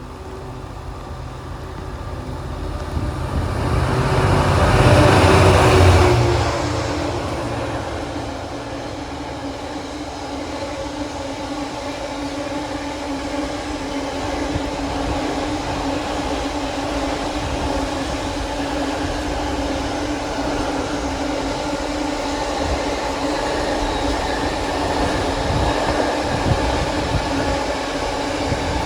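A train passing through the station, its noise swelling to a loud peak about five seconds in and falling away. A steady train drone with a low hum follows and carries on.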